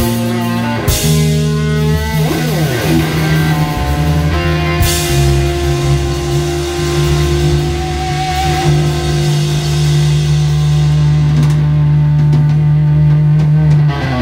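Live rock band playing the closing bars of a song: electric guitar and bass over drums, moving through a few chords and then holding one final low chord with cymbals washing for about ten seconds. It cuts off sharply at the end.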